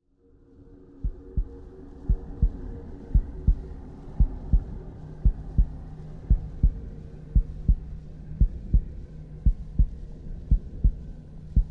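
Heartbeat sound effect: paired lub-dub thumps about once a second over a low, steady drone that fades in at the start.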